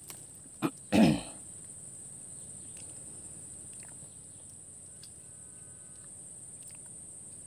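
Steady high-pitched insect drone from the swamp vegetation. About a second in there is a short, throaty vocal sound like a person clearing their throat, with a smaller one just before it.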